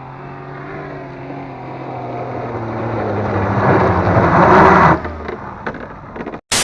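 Car engine held at high revs under load while climbing a steep dirt slope, the tyres spinning and throwing dirt. It gets steadily louder for about four seconds, then drops off sharply about five seconds in, followed by a few light knocks.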